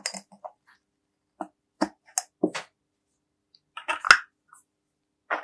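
Workbench handling sounds: a handful of short knocks and clicks from parts and tools being picked up and set down, the sharpest click a little after four seconds in.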